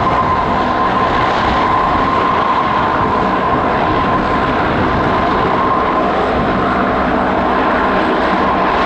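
Airbus A350-900's Rolls-Royce Trent XWB jet engines running at taxi power: a steady rushing noise with a steady whine through it.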